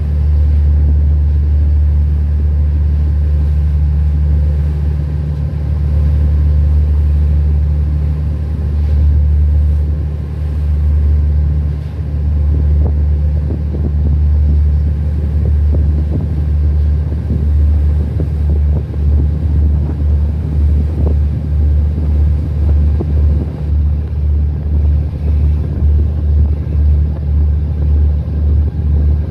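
Small boat's engine running with a steady low drone, with light water and wind noise. About two-thirds of the way through, the drone starts to throb about twice a second.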